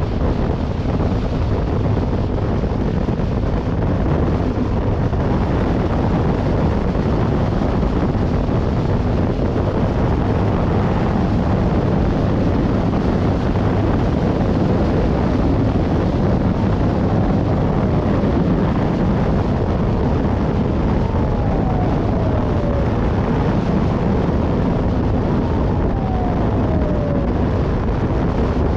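Heavy wind buffeting on the microphone of a GoPro riding on a moving police motorcycle, with the vehicle and road noise underneath. In the second half a faint siren wail, falling in pitch, repeats about every four seconds.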